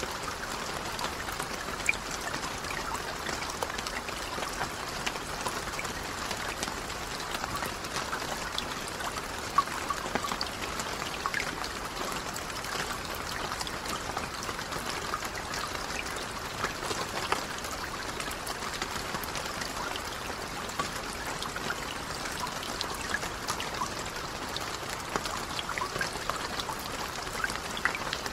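Steady rain falling on the surface of a lake, an even hiss dotted with many separate small drop ticks.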